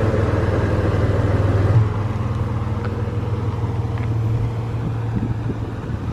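Third-generation Toyota 4Runner's engine idling with a steady low hum, slightly quieter after about two seconds.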